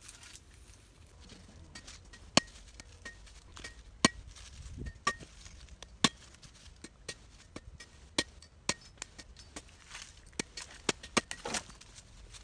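Irregular sharp knocks: a handful of loud strikes among many lighter taps, some with a brief metallic ring, as of a tool striking a hard material.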